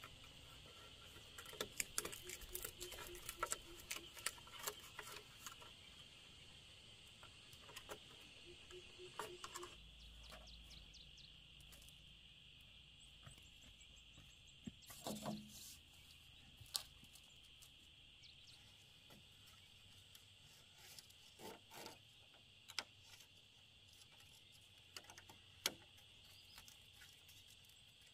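Faint scattered clicks and light knocks of thin bamboo strips and poles being handled while tying a bamboo trellis frame, busiest in the first few seconds, with a few sharper knocks later. A faint steady high-pitched drone runs underneath.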